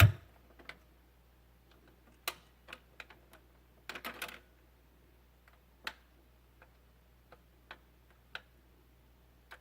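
Scattered, irregular clicks and pops from a vinyl record's quiet groove on a vintage Garrard turntable, over a faint steady low hum.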